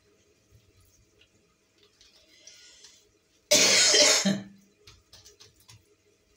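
A person coughs once, loudly, for about a second, roughly halfway through. Around it are faint rustles and small crackles as a piece of flaky baked poppy-seed pastry is handled and pulled apart.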